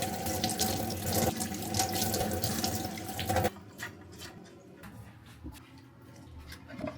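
Water running from a tap into a sink, shut off suddenly about halfway through; a few faint small clicks follow.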